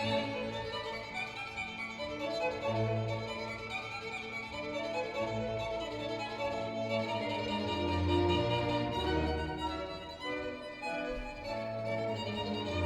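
Recorded music with a violin leading over sustained low bass notes, played back over a high-end hi-fi system's loudspeakers in a show demo room.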